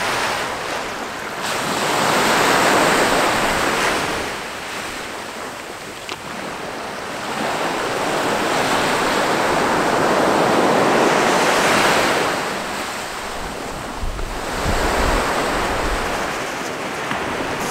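Small sea waves breaking and washing up the beach, the surf swelling and fading in two long surges. Wind buffets the microphone near the end.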